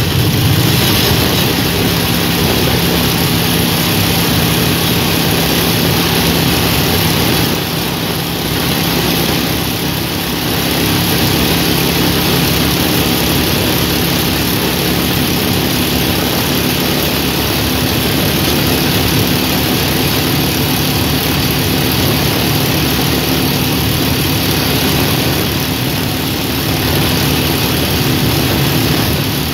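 Motorcycle engine running at a steady cruising speed, with heavy wind rushing over the microphone; the engine eases off briefly about eight seconds in.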